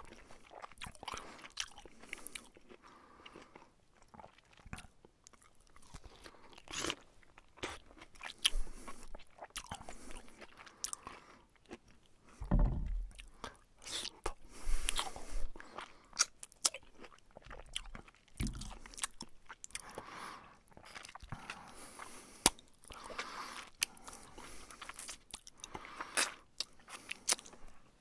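A person eating noisily with an open mouth: wet lip smacks, chewing and slurps in irregular bursts and clicks, heaviest about halfway through.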